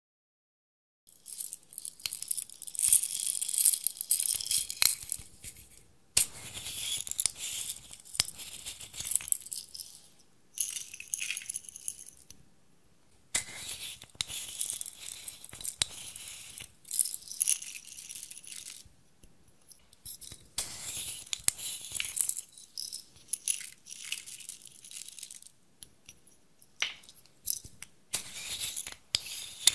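Small plastic jars of confetti sprinkles and glitter shapes being shaken and tipped into a glass dish. The sound is dry and rattly, in several separate runs with short pauses between them, starting about a second in.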